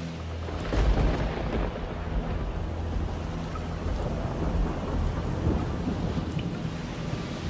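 Rain falling steadily, with a rumble of thunder about a second in.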